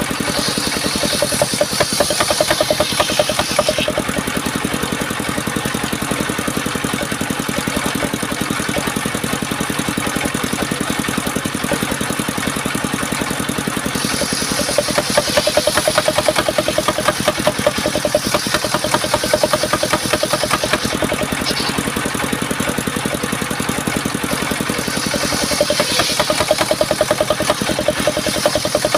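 Engine of an assembled circular sawmill running steadily with a rapid firing rhythm, its high end brightening briefly three times as the saw works.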